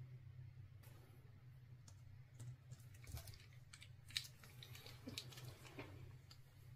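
Faint, scattered clicks and light taps of small objects being handled over a low, steady hum. The sharpest click comes a little past the middle.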